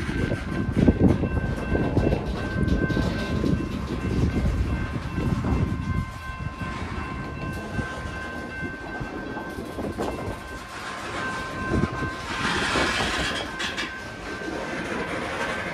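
Loaded covered hopper cars of a Union Pacific freight train rolling slowly past, with a low rumble and uneven clicking of wheels over the rail. A thin, steady high tone runs under it until about twelve seconds in, and a short hiss follows.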